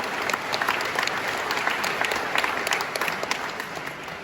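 A congregation applauding, many hands clapping at once, tapering off near the end.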